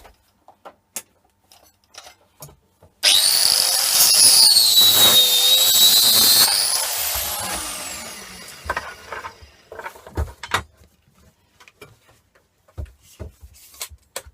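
Angle grinder switched on and cutting through the end of a copper-cored MIG welding torch cable for about three and a half seconds. Its whine dips under load, then it is switched off and spins down over a few seconds. Small handling clicks and knocks come before and after.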